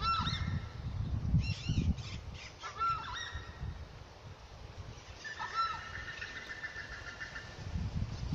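Southern screamers (chajá, tapacaré) giving loud honking calls in bursts, with a longer stretch of calling past the middle, over a low rumble.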